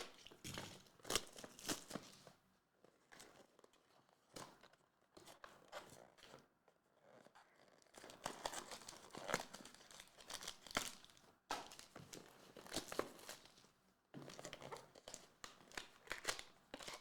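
Plastic wrapping being torn open and crinkled, irregular crackling and rustling while a trading card box and its packs are unwrapped.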